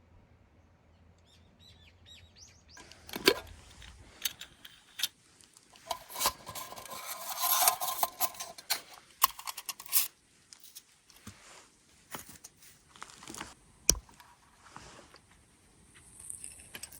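Metal camp gear being handled: sharp clinks and clatters of alcohol-stove and cookware parts, with a denser stretch of rustling or scraping in the middle. Small birds chirp faintly in the first couple of seconds.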